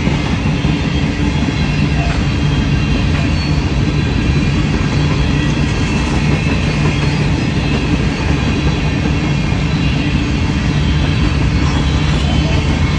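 Freight train passing close by: a steady, loud rumble of railcars rolling over the rails.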